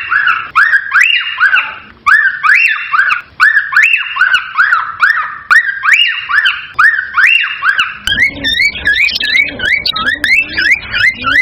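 Cockatiel whistling a rapid string of repeated rising-and-falling notes, about two to three a second. About eight seconds in the notes turn quicker and more warbling, with a lower sound added beneath.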